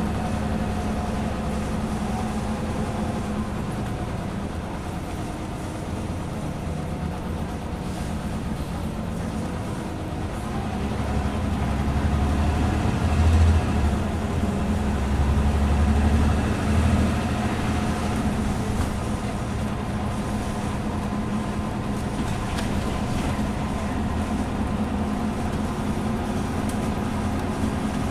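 Onboard sound of a Scania N94UB Omnicity single-decker bus under way: its diesel engine running steadily through the automatic gearbox. About halfway through, the low engine rumble grows louder for several seconds, then settles back.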